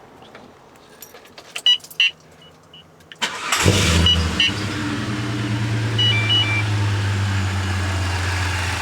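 The L67 supercharged 3.8-litre V6 in a VS Commodore cranks and catches a little over three seconds in, flares up, then settles into a steady idle. Before the start there are a couple of sharp clicks with short beeps, and a short two-tone electronic beep sounds over the idle a few seconds later.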